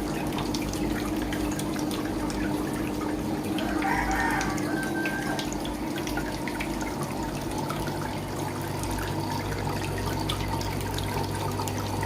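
Water trickling steadily down a homemade thermocol waterfall model, over a constant low hum. A short pitched call, like a rooster crowing, sounds about four seconds in.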